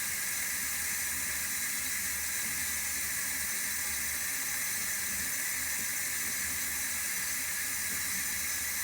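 Water running steadily from a tap, an even hiss that does not change.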